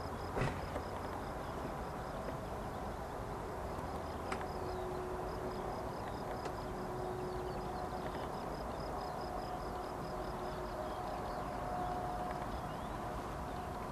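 Open-air ambience, a steady windy hiss, under a faint continuous hum and a faint rapid high-pitched ticking. Sharp clicks come near the start and about four seconds in.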